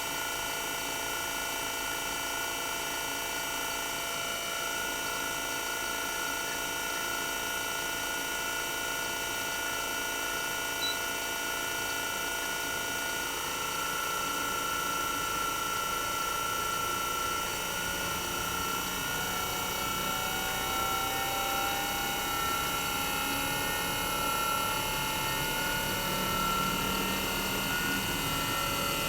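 Toshiba DA91A1F-42F twin rotary inverter compressor of a 1998 RAS-285LADR outdoor unit running with its cover and sound insulation off: a steady whine of several tones, one of which rises slowly in pitch through the second half as the inverter speeds the compressor up.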